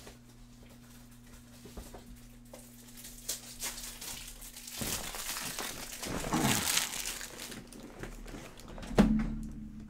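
Plastic wrapping crinkling and rustling as a new pack of card top loaders is opened, loudest in the middle, then a single sharp knock near the end.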